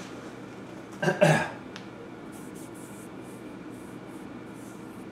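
Enco metal lathe spindle coasting to a stop after switch-off, leaving a low steady hum. About a second in there are two short, loud sounds close together.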